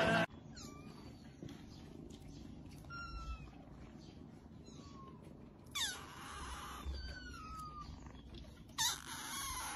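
Kitten meowing over and over: short, thin, high mews that fall in pitch, with the loudest two about six and nine seconds in.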